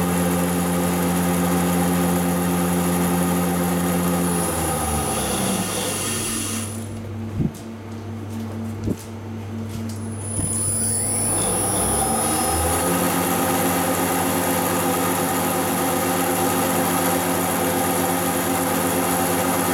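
Spindle motor on a Yaskawa spindle drive test stand, with the drive's electrical whine: it runs at a steady speed, ramps down to near standstill about five seconds in, gives two sharp clicks, then spins back up with rising whine and settles at a steady speed again.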